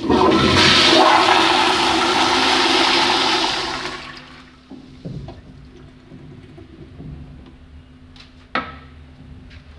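American Standard 1.6 gpf flushometer-valve toilet flushing: a sudden loud rush of water for about four seconds, fading to a quieter trickle as the bowl refills. A sharp knock near the end.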